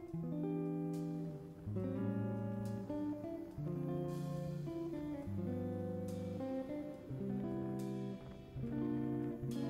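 Background music: acoustic guitar playing strummed and plucked chords that change about every second.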